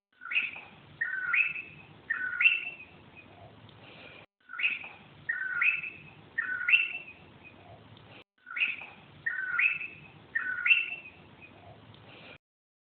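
Bird calls: a short phrase of about four clear, gliding whistled notes, played three times over, identical each time, with a brief break between repeats.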